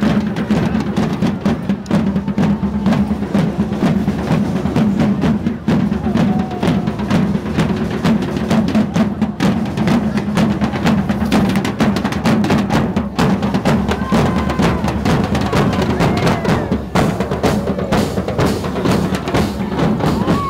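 A drum band playing a fast, continuous beat, with bass drum and rolls.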